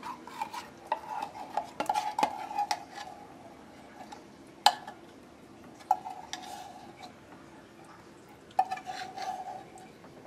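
Silicone spatula stirring and scraping a thick grated cassava and coconut batter in a glass mixing bowl, busiest in the first few seconds. It is followed by three sharp knocks against the glass, each ringing briefly.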